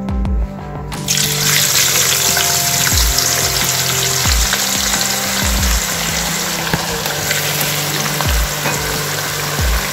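Sliced onions tipped into hot oil in a pan, which breaks into a loud sizzle about a second in and keeps frying steadily.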